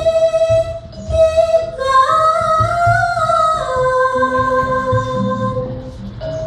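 Javanese gamelan playing a langgam, with a female singer (sindhen) holding long sung notes that step and bend in pitch over soft metallophone and gong strokes.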